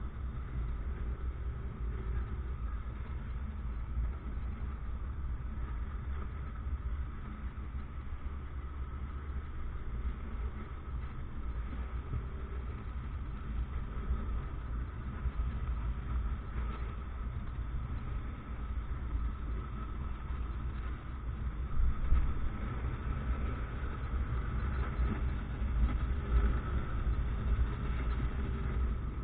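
Motorcycle running on a ride, heard from on the bike as a steady low rumble of engine and road noise, with a few sharper peaks about two-thirds of the way through.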